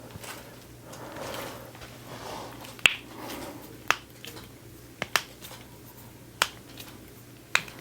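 Sharp single clicks from the chiropractic treatment: six in all, roughly one a second, with two in quick succession about five seconds in.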